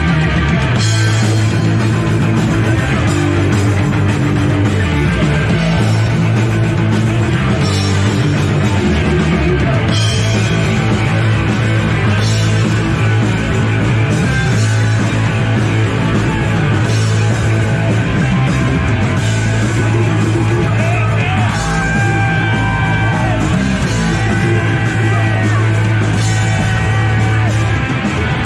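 Punk rock band playing live, with distorted electric guitars, bass and drums. The bass line is strong and cymbal crashes come every couple of seconds.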